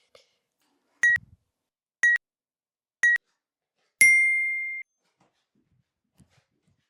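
Interval timer counting down: three short beeps a second apart, then one longer, slightly higher beep marking the start of the work interval.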